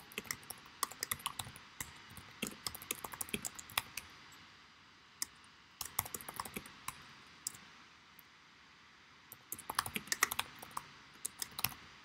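Typing on a computer keyboard: quick runs of key clicks in three spells with short pauses between.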